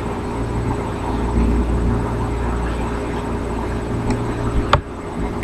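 Steady low hum and rumble of background noise with a faint steady tone, and a single sharp click near the end.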